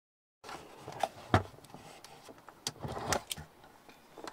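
Silence for the first half second, then scattered light clicks and knocks from handling and movement, with one sharper knock about a second and a half in.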